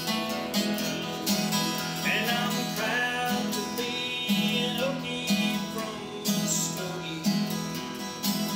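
Steel-string acoustic guitar strummed in a steady country rhythm, a strong strum about once a second over ringing chords.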